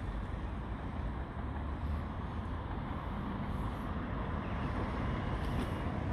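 Steady outdoor background noise: a low, uneven rumble of wind on the microphone over a hiss of distant traffic, with no train passing close by.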